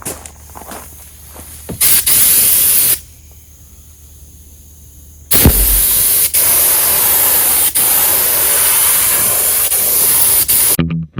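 Air spray gun spraying thinned black paint, a steady hiss: a short burst about two seconds in, then a longer pass of about five seconds starting past the middle, broken by a couple of brief trigger releases.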